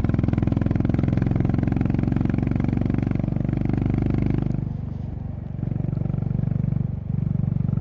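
Honda CB350RS motorcycle's single-cylinder engine and exhaust running under steady throttle, its firing pulses plain. It eases off about four and a half seconds in, dips briefly again near the end, then pulls on.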